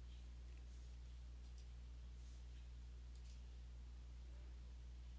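Faint computer mouse clicks, two quick double clicks about a second and a half apart, over a steady low electrical hum.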